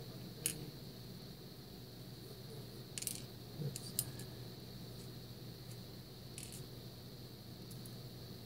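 Light, sharp clicks and taps of small lock pins and the Mul-T-Lock cylinder being handled, as the pins are taken out of the cylinder and set into a pin tray. About six separate clicks, a cluster of them around three to four seconds in.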